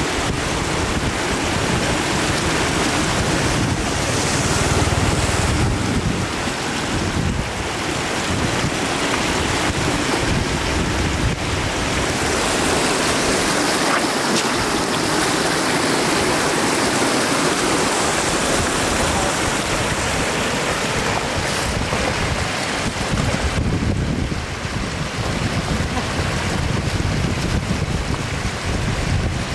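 Floodwater rushing steadily across a road and through shallow flooded grass, with splashing as a bamboo plunge-basket fish trap is worked through the current.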